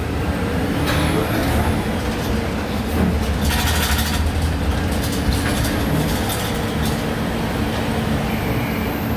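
Volksbus 17-230 OD natural-gas bus engine running steadily, with a short hiss of released compressed air about three and a half seconds in.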